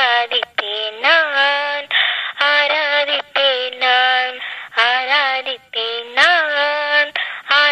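A woman singing a Christian devotional song solo, in short phrases with several held notes.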